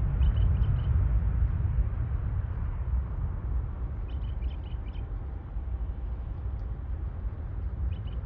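Boeing 737-800's CFM56-7 jet engines at takeoff thrust, heard as a low rumble that slowly fades as the airliner lifts off and climbs away. Short bursts of bird chirping come three times: near the start, about four seconds in, and at the end.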